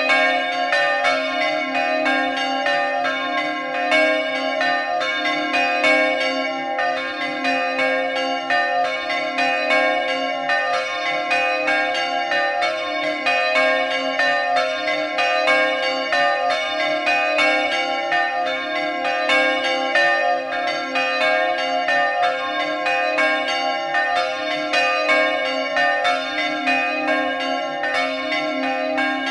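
Peal of three bronze church bells tuned to a C major diatonic scale, swung high in the Friulian style by electric motors and ringing together without pause, their strikes overlapping continuously.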